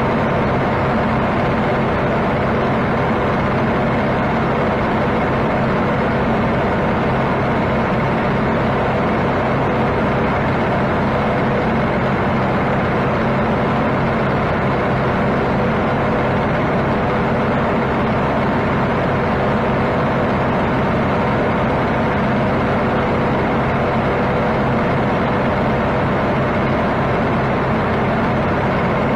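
Kubota M6-131 tractor's diesel engine running steadily under load while driving a Kuhn GMD 800 disc mower through hay.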